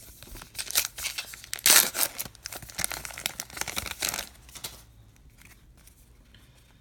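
Trading card pack wrapper being torn open and crinkled by hand. The crackle is loudest about two seconds in and dies down after about five seconds.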